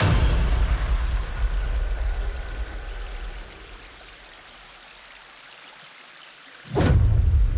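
Water of a small stream cascading over rocks, a steady rush with a deep rumble. It eases to a softer hiss about halfway through, then a louder rush comes in suddenly near the end.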